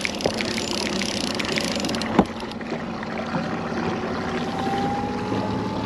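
Outboard motor running steadily as the boat trolls slowly, with water and wind noise around it. There is one sharp knock about two seconds in, and a faint thin whine that rises slightly toward the end.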